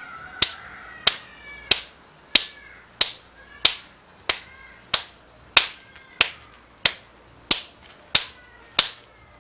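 Open hand slapping bare skin on the inside of a man's arm at the elbow, about fourteen sharp slaps in a steady rhythm, roughly one and a half a second: paida slapping therapy.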